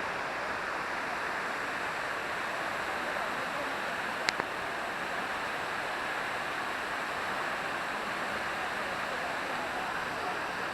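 Steady rush of falling water from the Sai Yok Noi waterfall, with a single sharp click about four seconds in.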